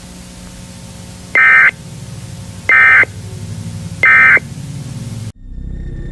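Emergency Alert System end-of-message data tones: three short, loud, raspy bursts about a second and a half apart, marking the end of the alert. Under them runs a low steady hum that cuts off suddenly near the end.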